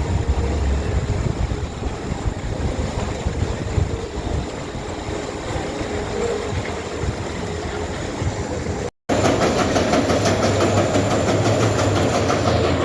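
Roller coaster train running on its steel track, a heavy rumble with wind buffeting the microphone. About nine seconds in, after a sudden break, it comes back louder as a dense rattling clatter.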